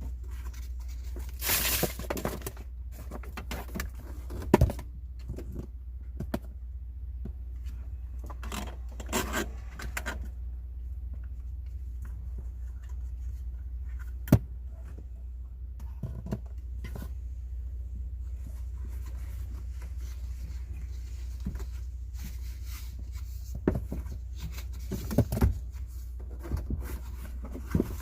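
Hand work on an installation: scattered clicks, knocks and short scraping rustles of tools and parts being handled, over a steady low hum.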